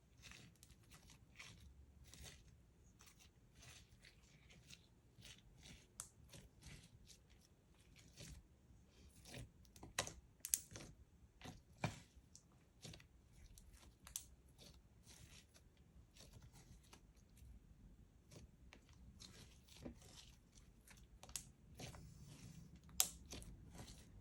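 Slime being worked by hand, giving quiet, irregular sticky clicks and crackles, with a few sharper snaps about halfway through and again near the end.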